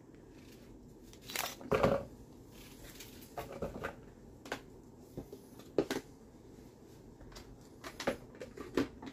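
A small knife cutting a peeled onion by hand, and plastic kitchenware being handled: scattered short clicks and knocks, a louder cluster of them about two seconds in.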